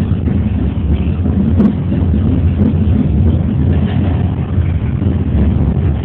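Funicular car running downhill on its rails, heard from inside the cab: a steady low rumble, with a single click about a second and a half in.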